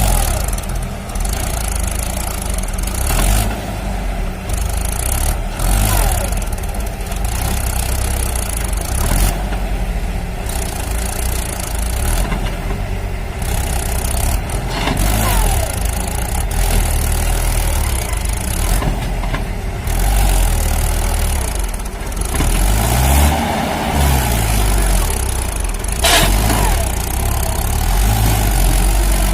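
A motor vehicle engine running steadily, with a deep rumble and its pitch rising and falling now and then.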